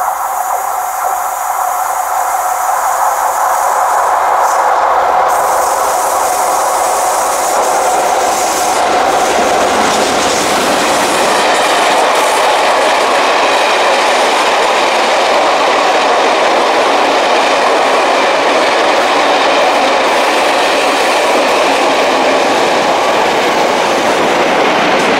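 Empty Northern Belle coaching stock, hauled by class 57 diesels, running close past the platform. It makes a loud, steady rolling rush of wheels on rail, which builds over the first few seconds and then holds.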